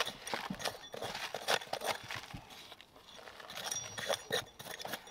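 A hand trowel scraping and knocking in dry, stony soil as a trench is dug: a string of short, irregular scrapes and clicks.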